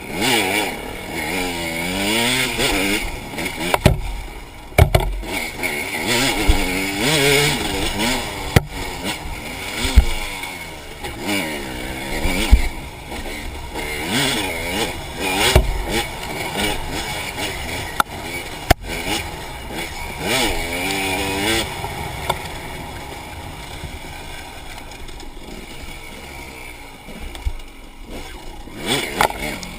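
Enduro dirt bike engine revving up and down over and over as it is ridden, with sharp knocks and clatters now and then. The engine is steadier and quieter for a few seconds near the end.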